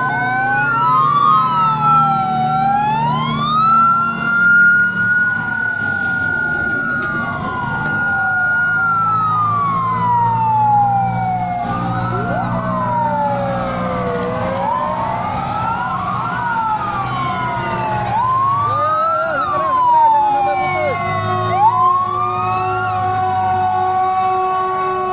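Sirens of several police and fire vehicles wailing at once as the convoy drives past, their rising and falling sweeps overlapping, over a low engine rumble. In the last few seconds some of the sirens hold steady tones.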